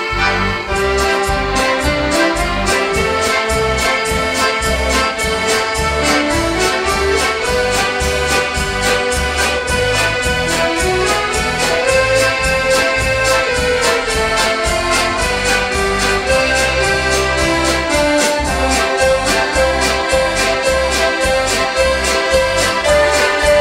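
An accordion orchestra plays sustained chords and a moving melody. A drum kit comes in at the start with a steady beat of kick drum and hi-hat.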